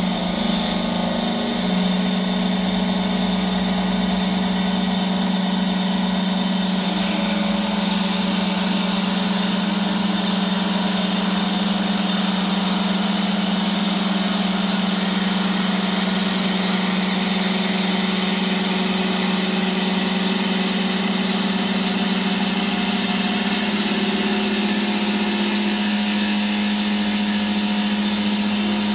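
Wood CNC lathe running a turning job: a steady motor hum under the hiss of the cutter shaving the spinning wooden blank.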